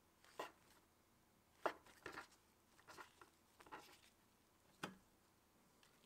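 Chef's knife cutting through stacked fish cake sheets on a bamboo cutting board: a handful of separate short knocks of the blade on the board, the loudest a little under two seconds in.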